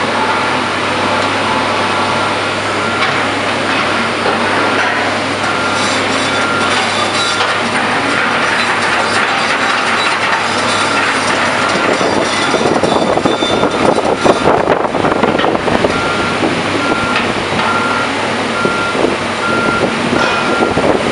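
Heavy diesel construction machinery running, with a backup alarm beeping in a steady repeating series over the din. The machinery noise gets louder and rougher about twelve seconds in.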